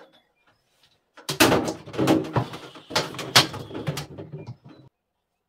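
Clattering and knocking from a glass-door IKEA Milsbo cabinet being handled, its metal frame, doors and glass fittings rattling, with some pitched creaking in among the knocks. It starts about a second in and stops shortly before the end.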